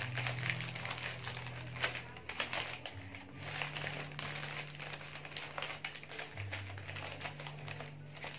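Wrapping paper rustling and crinkling in irregular bursts as it is folded and pressed around a bouquet of wax roses, over a low steady hum that shifts in pitch a few times.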